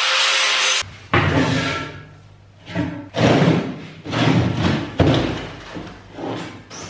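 Angle grinder grinding a weld on steel, cutting off abruptly under a second in. Then a welded square-tube steel frame is handled on a table: a series of irregular heavy clunks and scrapes as it is lifted, set down and shifted.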